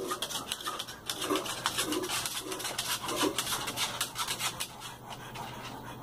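Moluccan cockatoo walking on a plastic folding tabletop, its claws clicking and scratching with each step, with a few short low sounds between about one and three and a half seconds in.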